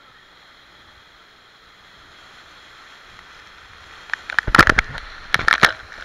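Waterfall rushing steadily, growing louder as the microphone nears it. From about four seconds in, water and spray strike the microphone directly in loud, irregular splashes and knocks.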